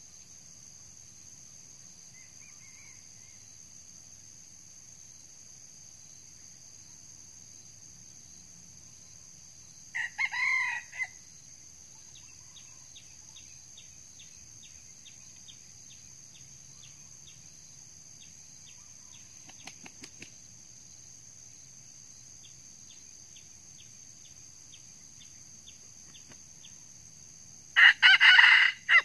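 Red junglefowl rooster crowing twice, each crow about a second long: a quieter one about ten seconds in and a louder one near the end. Under it runs a steady high insect drone with faint rapid ticking.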